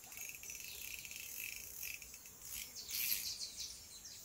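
Insects chirring in a steady pulsing drone, with a brief louder burst of high hiss about three seconds in.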